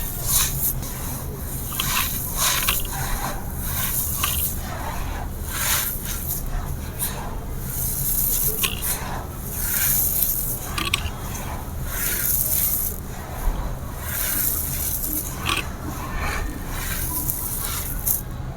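Dry grey concrete slab pieces being crumbled and crushed, with gritty crunches and scrapes coming irregularly, a few every second.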